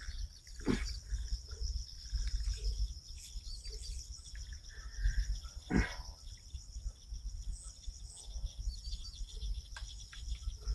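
Insects chirring steadily and high-pitched over a low rumble outdoors, with two brief short sounds, one about a second in and one near the middle.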